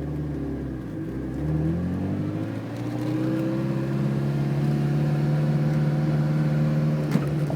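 1992 Ferrari 348 TS's 3.4-litre V8 with a performance exhaust, pulling away in first gear. The engine note rises over about a second and a half, then holds steady. One brief click near the end.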